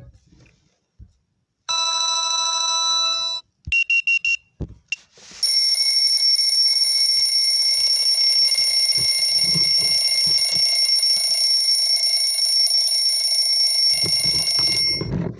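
Lenovo A5 phone alarm tones played one after another: a short buzzing tone about two seconds in, a burst of rapid high beeps around four seconds, then a long, steady, high ringing alarm from about five seconds in that cuts off just before the end.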